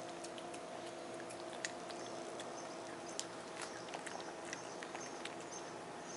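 A domestic cat chewing wet cat food: irregular soft clicks from its mouth, over a steady faint hum.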